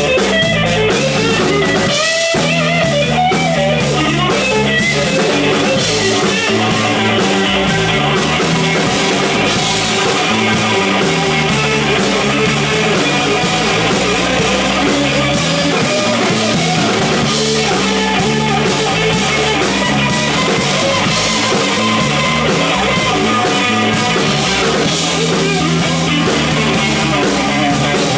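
Live band playing an instrumental passage on electric guitar, electric bass and drum kit, loud and steady throughout.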